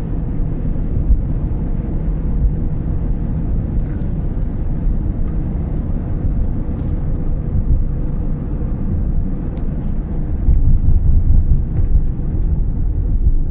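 Car driving through a road tunnel, heard from inside the cabin: a steady low rumble of tyres and engine, a little louder about ten and a half seconds in.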